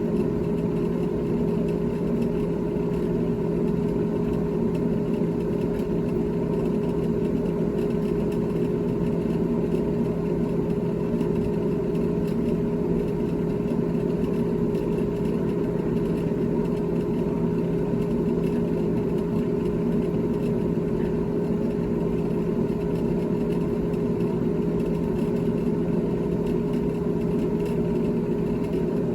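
GE GTH18XCTZRBB refrigerator running: a steady, unchanging hum with a constant low tone.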